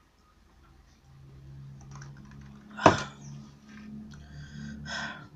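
A single sharp knock a little before three seconds in, over a low steady hum that sets in after about a second.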